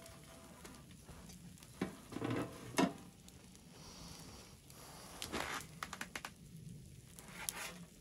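Spatula scraping food out of a cast-iron skillet onto an enamel plate, and the skillet being set down on the steel top of a wood stove: a few short scrapes and knocks, the loudest about three seconds in.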